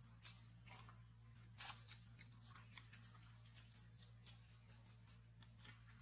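Faint, irregular dry crackling: short, quick clicks scattered through the whole stretch, with no voices or calls.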